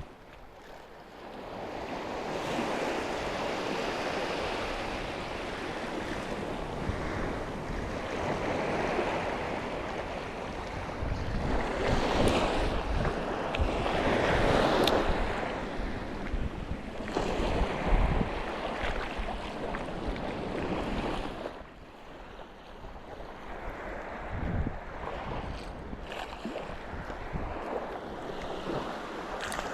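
Sea surf washing in surges that swell and ebb every few seconds, with wind buffeting the microphone; the wash drops quieter about two-thirds of the way through.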